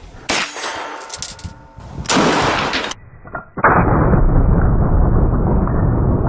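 A gunshot and a steel target plate ringing from the hit, followed about two seconds in by a second blast. After that comes a steady rushing noise.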